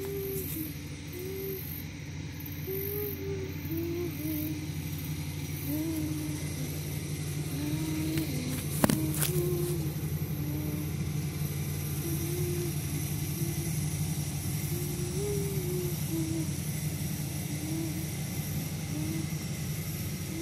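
A voice humming a slow tune in short, slightly bending notes, over a steady low rumble, with one sharp knock about nine seconds in.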